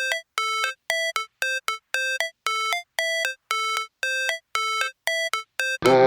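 Background music: an electronic intro of short, bright synth notes repeating in a pattern of about two a second, with silence between them. The full beat with bass comes in just before the end.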